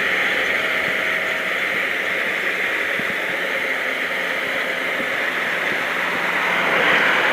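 Kubota DC60 combine harvester running steadily in the rice field, a dense, even rushing noise of the machine at work, swelling slightly near the end.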